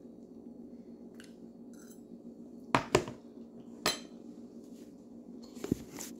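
A metal fork clinking against a bowl about five times, in three clusters: two close together near the middle, a single ringing clink a second later, and two more near the end. A low steady hum runs underneath.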